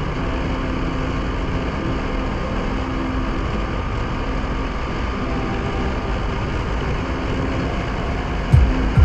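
KTM Duke 390's single-cylinder engine running steadily under a steady rush of noise, with one sharp low thump near the end.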